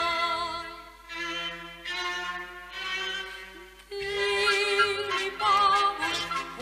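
Hungarian operetta song with orchestral accompaniment: a female singer's held note fades in the first second into a quieter accompanied passage, and about four seconds in a strong melody with vibrato takes over, sounding like a violin.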